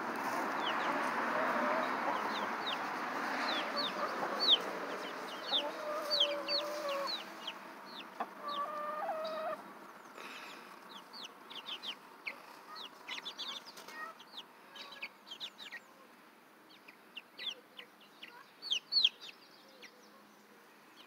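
Young chickens peeping: many short, high-pitched cheeps that slide downward, a few a second at times, scattered throughout. A steady background noise underlies the first half and drops away about ten seconds in.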